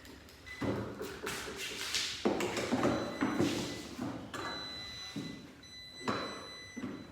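Irregular knocks, taps and rustling of plastic and metal parts being handled during a repair on a Razor electric four-wheeler.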